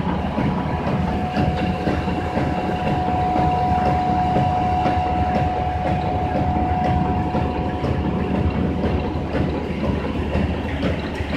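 Plastic-bag cutting and heat-sealing machines running: a fast, even mechanical clatter over a low rumble, with a steady high whine.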